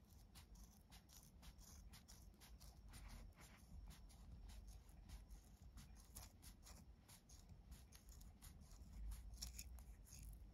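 Scissors snipping through the loose ends of 4 mm nylon paracord, trimming them to length: a run of faint, irregular snips.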